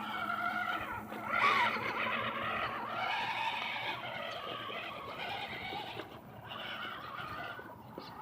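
Small electric motors and gearboxes of radio-controlled rock crawlers whining as they crawl, the pitch rising and falling with the throttle, with one quick swoop about one and a half seconds in.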